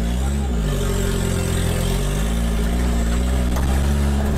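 The car's small 800cc turbocharged engine running at low revs as the car pulls away, its pitch dipping and rising gently several times with the throttle.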